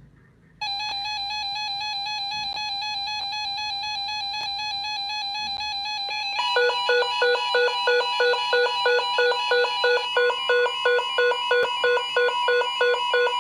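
Emergency alert tones from a NOAA Weather Radio broadcast, signalling an incoming weather warning. A steady electronic alarm tone starts suddenly about half a second in. About six seconds in, a fast, evenly pulsing beep joins it, two to three beeps a second.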